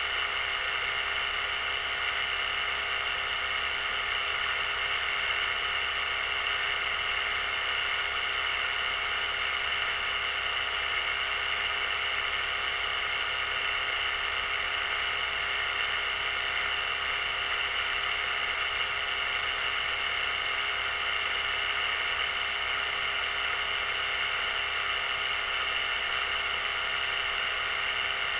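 OpenROV 2.8 underwater drone's electric thrusters running steadily as it descends: an even whir made of several fixed tones, the strongest a high-pitched whine.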